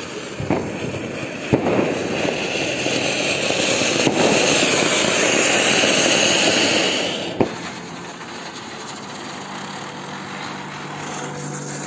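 Ground fountain firework (anar) hissing as it sprays sparks, with sharp pops about half a second and a second and a half in. The hiss swells, then drops with a crack about seven seconds in, and a fainter hiss goes on.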